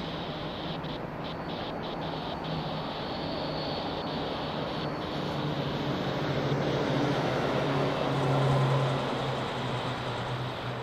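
Steady rumble of a long train of empty hopper cars rolling away along the rails, with a low hum that swells near the end and a few faint ticks in the first seconds.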